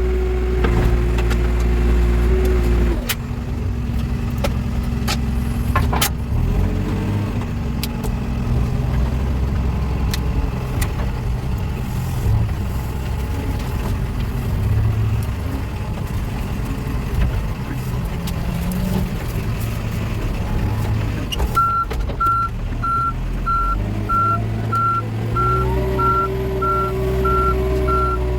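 Backhoe loader's diesel engine working under varying throttle: revved high at first, dropping about three seconds in and rising again near the end, with a couple of sharp knocks. From about 21 seconds in, the reversing alarm beeps steadily as the machine backs up.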